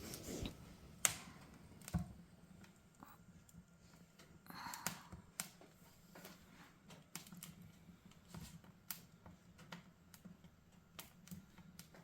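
Wood fire crackling in a fireplace: irregular sharp pops and crackles over a faint steady low hum.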